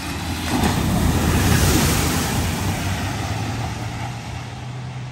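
Van driving fast through a flooded ford: its engine hums under a loud rush of spraying water that builds about half a second in, peaks around two seconds, then slowly dies away.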